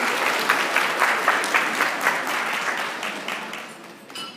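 A roomful of people applauding: dense clapping that fades away over the last couple of seconds, with a single short click near the end.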